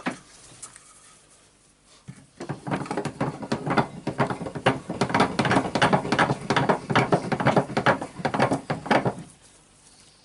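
Rapid, irregular clicking and scraping of hand tools against metal parts for about seven seconds, starting about two seconds in.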